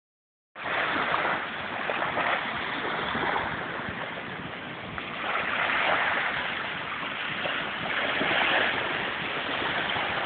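Small sea waves and wind: a steady rushing hiss that swells and eases every few seconds, starting about half a second in.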